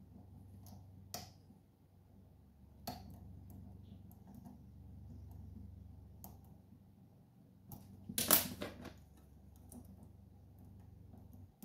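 Lock picking: small metallic clicks and scrapes of a hook pick working the pin tumblers of a pin-tumbler lock under tension, a few scattered clicks and then a louder burst of rattling clicks about eight seconds in. A faint steady low hum underneath stops just before the end.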